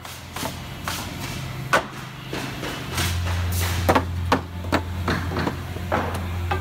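Orange soft-faced mallet striking a wooden 2x lumber board, knocking it into position: about half a dozen sharp knocks, several in quick succession toward the end. A low steady hum comes in about three seconds in.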